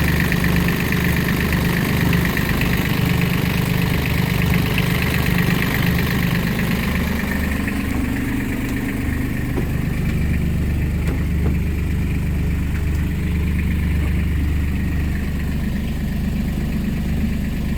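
Beta Marine 25 three-cylinder diesel idling steadily, running to heat water through the calorifier.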